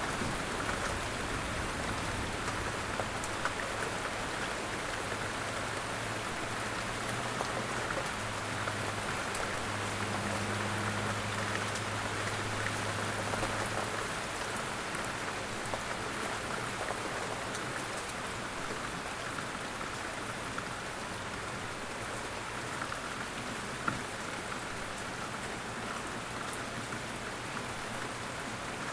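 Steady rain falling, an even dense hiss with fine crackle of drops. A low steady hum runs under it for about the first half, then fades out, and there is a single sharp tick near the end.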